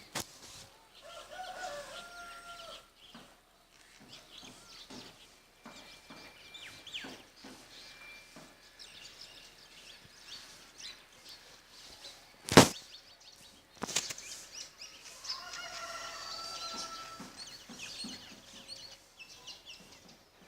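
Birds calling and chirping, short high whistles and twitters with two longer held calls, one early and one in the second half. A single sharp loud click about halfway through.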